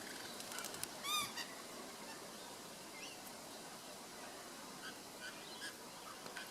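Birds calling: a short, ringing call of several quick rising-and-falling notes about a second in, then scattered faint short chirps.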